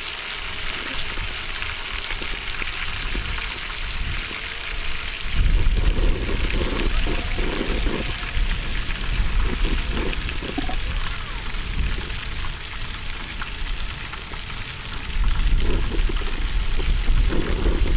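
Chicken deep-frying in hot oil, a steady sizzle and crackle. From about five seconds in, a low buffeting rumble comes in under it.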